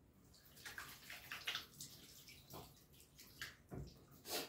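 Faint water splashing and running at a kitchen sink, uneven rather than a steady stream, with a few light knocks of dishes being handled and a louder knock near the end.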